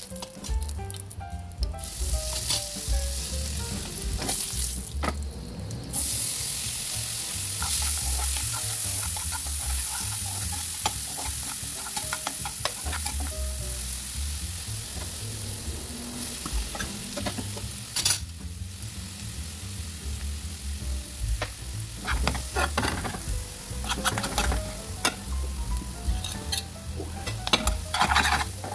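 Food frying in hot oil in a frying pan: spices and then chopped onion sizzling, the hiss starting suddenly about six seconds in. A spatula scrapes and clicks against the pan as it is stirred, busiest near the end as potatoes and tomatoes are tossed in.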